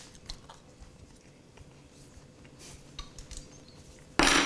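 Quiet eating with a few small clicks, then near the end a metal fork clatters down onto a wooden countertop with a short ringing clink. A faint steady hum runs underneath.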